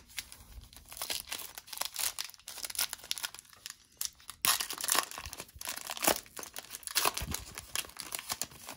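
Foil trading-card pack being torn open by hand, its wrapper crinkling and crackling as the cards are pulled out; the crackling grows denser and louder about halfway through.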